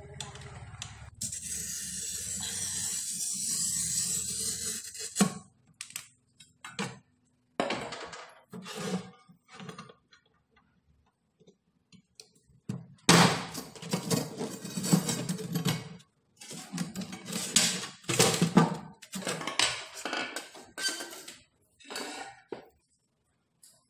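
Glass cutter scoring a polished black granite slab: a steady high scratching hiss for about four seconds that grows louder. Then a sharp click and a run of knocks and clinks as the scored granite pieces are separated and moved on the wooden board.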